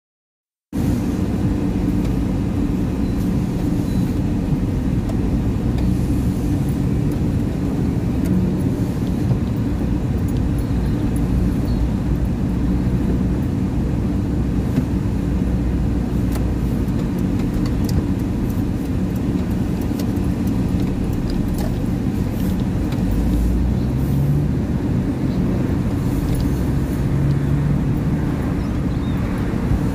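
Car driving along a street, heard from inside the car: a steady low rumble of engine and road noise, with scattered faint ticks and rattles.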